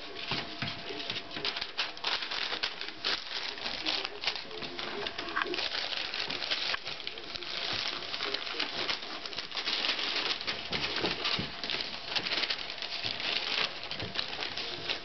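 A litter of young Staffordshire Bull Terrier puppies scrabbling about on newspaper and bedding: a continuous run of rustling, scratching and paw patter, with small squeaking puppy cries here and there.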